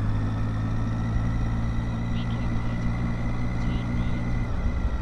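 Triumph Tiger 800's three-cylinder engine running at a steady, even cruising speed, with a constant rush of wind and road noise over it.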